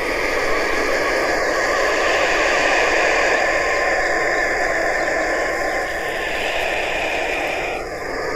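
Black vulture hissing: a continuous rough, breathy hiss that shifts slightly in tone a few times.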